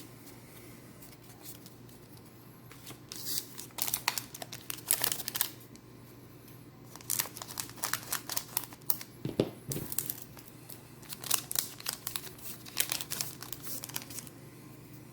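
Foil booster pack wrapper for the Dragon Ball Super Card Game being torn open and crinkled by hand, in bursts of crackling from about three seconds in.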